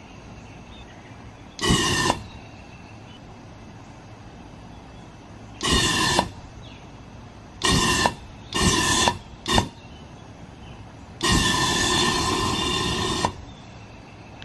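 Propane released in pulses by a solenoid valve into a homemade rocket engine, lit by a small torch and flaring into a fireball. Six blasts of rushing, burning gas with a whistling tone: four short ones, a very brief one, and a last, longest one of about two seconds. Each starts and cuts off sharply as the valve opens and closes.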